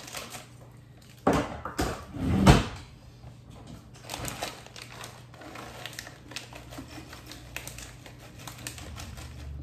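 Frozen corn kernels poured from a plastic bag into a small glass measuring cup, with many small clicks as they land. A few louder knocks and handling noises come about one to two and a half seconds in.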